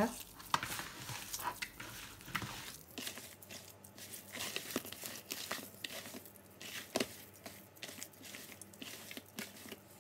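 A bare hand squeezing and mashing a boiled potato mixture in a plastic bowl: soft, irregular squelching and crackling, with a sharper click about seven seconds in.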